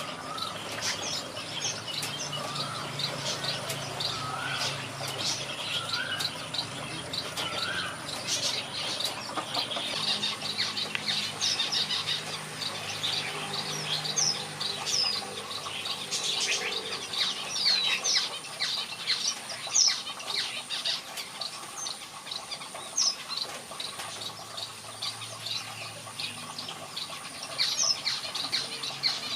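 Birds calling in an aviary, including red-whiskered bulbuls: a dense run of short, high chirps and quick down-slurred whistled notes, with some lower wavering notes in the first several seconds.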